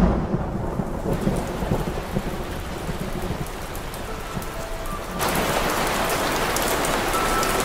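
Rain and thunder in a film soundtrack: a thunder rumble dies away in the first second, leaving steady rain. About five seconds in the rain becomes heavier and louder, then cuts off suddenly at the end.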